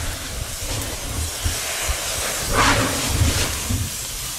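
Lava spattering from Kilauea's Fissure 16 spatter cone: a continuous hissing rush over an uneven low rumble, with a louder gush about two and a half seconds in.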